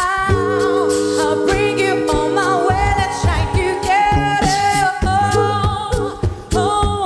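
A cappella vocal group singing held, wordless chords in several parts over a low vocal bass line, with beatboxed percussion keeping a steady beat; the chords shift every second or two.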